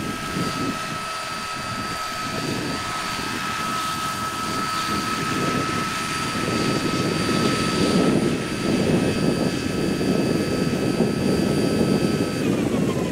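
Radio-controlled scale Westland Lynx helicopter coming in to land: a steady high whine from its drive over the beat of its main and tail rotors. The rotor noise grows louder from about halfway as it settles onto the grass, and the whine cuts out near the end.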